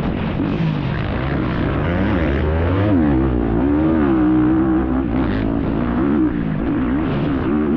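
Racing dirt bike's engine heard up close, its pitch rising and falling again and again as the throttle is worked on and off over rough ground, with a steady low rumble underneath.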